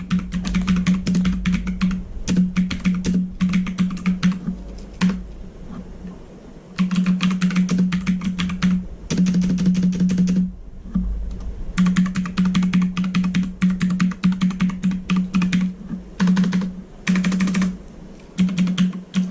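Armaggeddon MKA-8C mechanical keyboard being typed on: fast runs of clicky key presses, broken by two short pauses.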